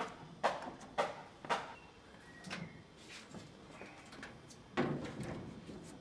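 Light clicks and knocks as the wiring connectors are handled, then a washing machine's metal top panel being set down and slid back into place, with a heavy clunk nearly five seconds in.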